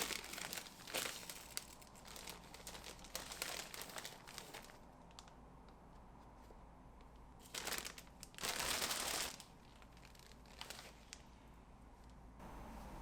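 Packaging crinkling and rustling as it is handled, in irregular bursts through the first few seconds, then quieter, with two louder rustles about eight to nine seconds in.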